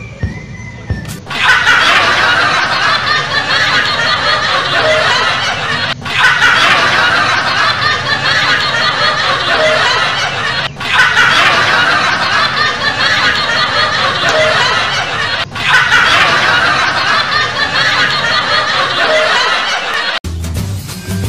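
Laughter sound effect of a group laughing hard. One clip about four to five seconds long is looped four times back to back, starting about a second in and cutting off abruptly near the end.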